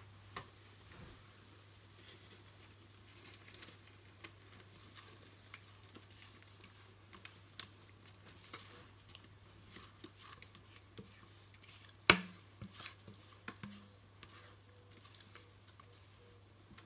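Spatula scraping thick chocolate cake batter out of a stainless steel mixing bowl into a lined cake pan: faint scrapes and small ticks, with one sharp knock against the bowl about twelve seconds in and a few softer ones just after.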